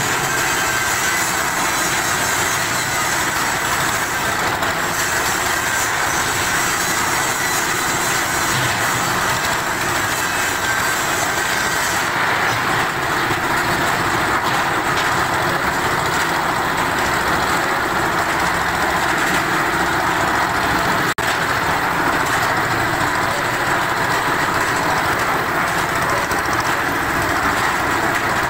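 Concrete mixer's engine running steadily under load while the drum turns, with one momentary break about two-thirds of the way through.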